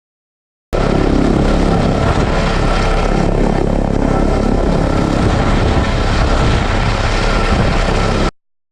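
Airbus H145 twin-engine helicopter running loud and steady, rotor and turbine noise with a faint steady whine; the sound starts and stops abruptly.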